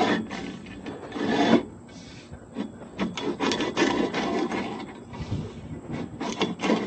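Irregular scraping and rubbing with scattered knocks as a piece of equipment is lifted and handled.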